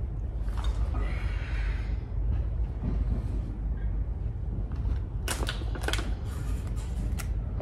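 A quick run of sharp clicks lasting about two seconds, starting about five seconds in, over a steady low rumble.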